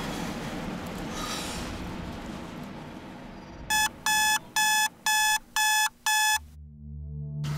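Digital bedside alarm clock beeping: six quick electronic beeps at about two a second that cut off suddenly.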